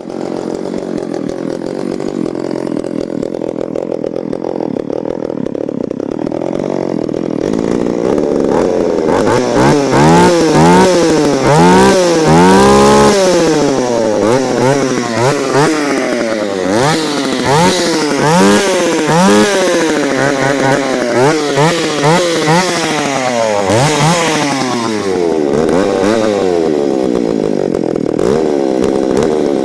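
Alpina 330 two-stroke chainsaw idling, then revved up and down repeatedly from about nine seconds in, settling back to idle near the end.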